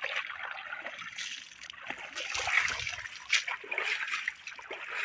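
Water splashing and sloshing onto a large catfish lying in wet mud, in uneven spatters, with a sharp splat a little over three seconds in.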